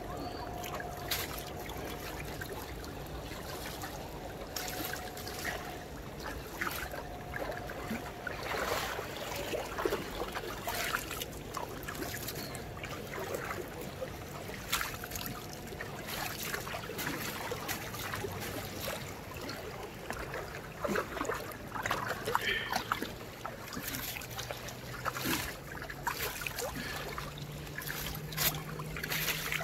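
Shallow stream trickling and splashing over pebbles, with a small cascade upstream; a steady babble dotted with many small splashes.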